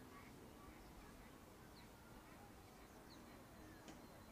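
Near silence: faint outdoor ambience at a pond, with a few faint, short bird chirps here and there.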